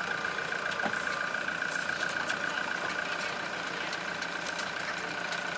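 A vehicle running steadily, with a constant high whine over an even noise.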